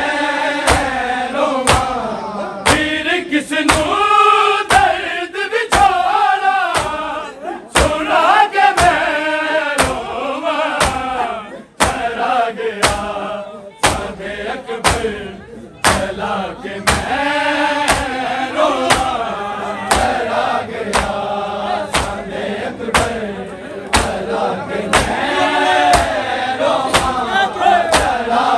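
A group of men chanting a noha in chorus, the voices rising and falling together, over evenly spaced sharp strikes about every three-quarters of a second: the rhythmic chest-beating (matam) that keeps time for the lament.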